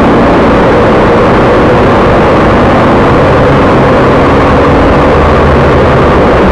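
Fordson tractor engine running steadily under load while pulling a plough, loud and close.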